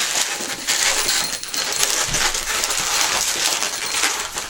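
Inflated latex 260 balloons squeaking and rubbing against each other as they are twisted and locked together: a dense run of squeaks and crackles.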